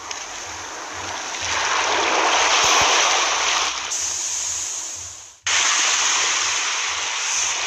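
Rushing, splashing water noise that swells in the middle, fades away and then cuts back in abruptly about five and a half seconds in.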